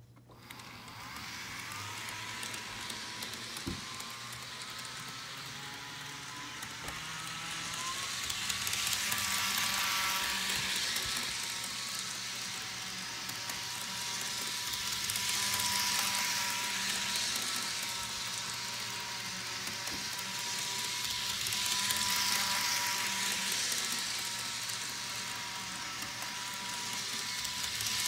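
Bachmann HO scale model train running around a small oval of track: a steady high motor whine over the rush of its wheels on the rails. The sound swells and fades about every six seconds as the train comes close and goes away again.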